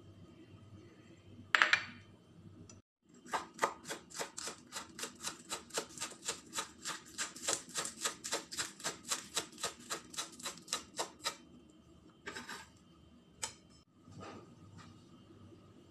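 Chef's knife chopping green onions on a wooden cutting board: a steady run of sharp chops, about four or five a second, lasting some eight seconds. Shortly before that, one brief louder sound as shrimp are tipped into the bowl of ground pork, and a few scattered soft knocks near the end.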